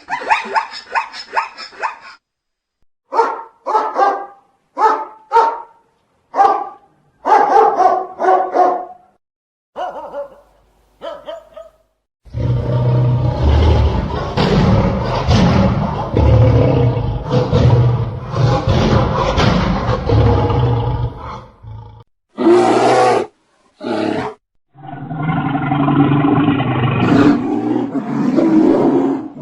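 A series of recorded animal calls: a dog barking in quick, repeated barks over the first several seconds, then a long, deep, continuous call from a large animal lasting about ten seconds, followed by a few shorter calls near the end.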